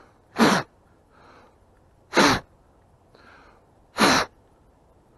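A man breathing hard close to the microphone: three sharp, loud breaths about two seconds apart, with softer breaths between them.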